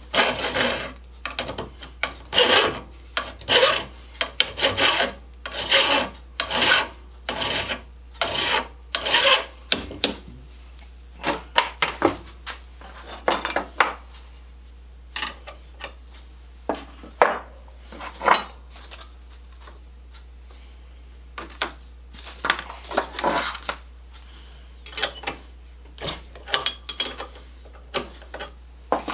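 Hand file rasping across metal in short strokes, about two a second for the first ten seconds, then fewer, scattered strokes with pauses between them.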